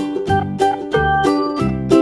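Background music: a bright, steady-beat tune with plucked-string and keyboard notes over a bass line.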